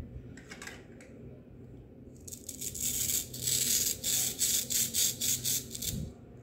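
Hook-and-loop (velcro) fastener on a plastic toy strawberry's two halves being worked together: a rapid rasping crackle that starts about two seconds in and lasts about four seconds, ending with a soft thump. A short crackle of plastic toy pieces comes about half a second in.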